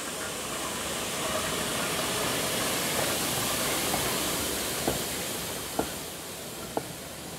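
Beyer Peacock 2-4-0 tank steam locomotive passing at slow speed with a loud, steady steam hiss. From about five seconds in, the train's wheels click over the rails about once a second as the wagons follow.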